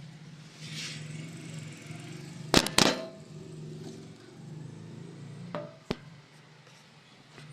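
Sharp clacks of the copier's plastic toner hopper unit being handled: two close together about two and a half seconds in, another near six seconds, over a steady low hum.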